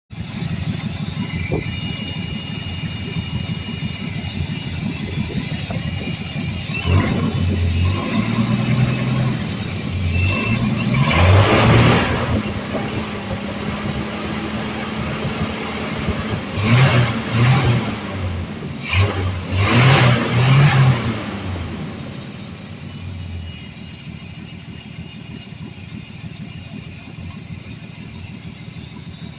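Ford 300 cubic-inch inline-six in a 1982 F-150 running and being revved several times, each rev-up rising and falling back, before it settles to a lower, quieter idle near the end. A thin steady whistle sounds over the engine in the first few seconds. The owner puts the rough running down to a bad vacuum leak somewhere around the Quadrajet carburetor.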